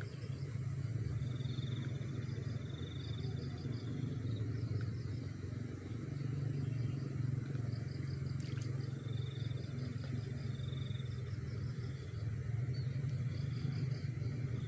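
Outdoor ambience: a steady low rumble, with high pulsing trills that come and go every couple of seconds and a faint constant high tone.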